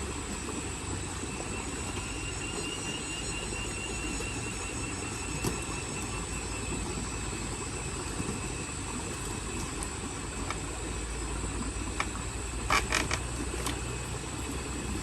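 A steady low rumble like a vehicle engine running, with a brief cluster of sharp clicks near the end.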